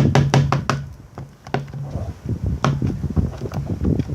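Irregular knocks and taps of slime-making containers and utensils handled on a table: a quick run of them in the first second, then scattered ones.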